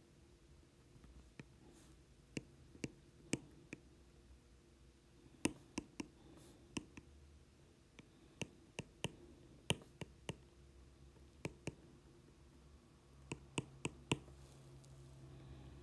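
Stylus tapping and clicking on an iPad's glass screen during handwriting: irregular faint clicks, a few a second at times.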